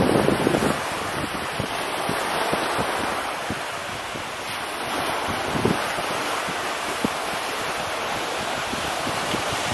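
Small waves washing onto a sandy shore, a steady hiss of surf, with wind buffeting the microphone in low rumbling gusts, strongest in the first second and again about halfway through.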